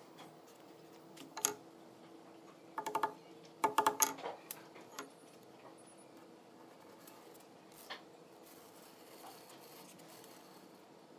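Light metallic clinks and taps of a steel rod against a wooden slab as it is swung to scribe a circle: a single click, then two short rattling clusters about three and four seconds in, and one more near eight seconds. A faint steady hum runs underneath.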